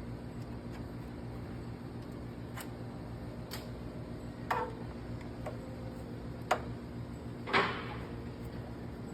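A Phillips screwdriver and screws clink and click against the ice machine's sheet-metal side panel as the panel's two screws are taken out. There are about five short metallic clicks, the loudest near the end, over a steady low hum.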